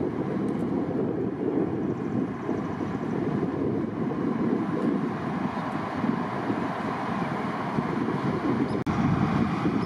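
Steady low rumble of a light armoured vehicle's diesel engine running at idle.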